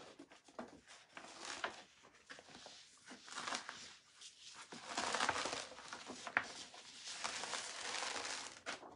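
Reusable silkscreen transfer and its paper backing sheet rustling and crinkling as they are handled and peeled apart, louder in the second half, with one sharp tick a little past the middle.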